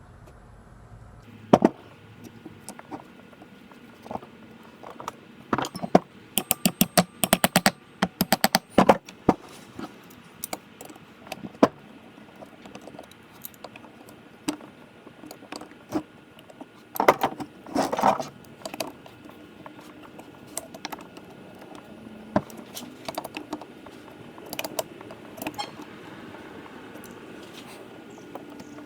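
Small metal brake parts clinking and clicking as brake pads, metal clips and pins are fitted into a four-piston brake caliper by hand. There is a quick run of clicks from about six to nine seconds in, and scattered clinks and taps before and after.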